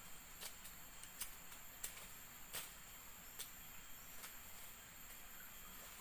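Forest insects giving a steady, high, two-pitched drone, with irregular sharp clicks and snaps about one or two a second from plant stems and leaves being worked by hand close by.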